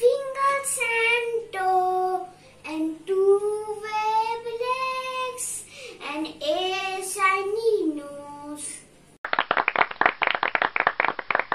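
A young girl singing a rhyme in a child's voice, with pauses between lines; about nine seconds in the singing stops and dense applause takes over.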